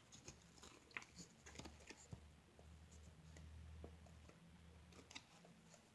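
Near silence: room tone with a faint low hum and a few scattered faint clicks.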